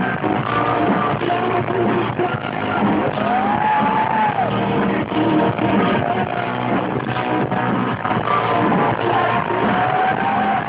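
Live rock band playing loud, heard from the audience: distorted guitars, bass and drums, with a sustained high note that bends up and falls away about three to four seconds in.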